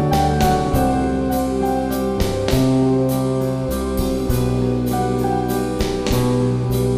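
Instrumental background music: keyboards and a fretless bass over a steady drum beat.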